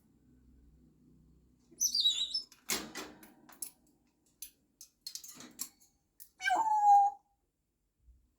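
Pet parrot calling: a short high chirp, then rustling and scattered clicks. Near the end comes a louder drawn-out call that slides down and holds one pitch.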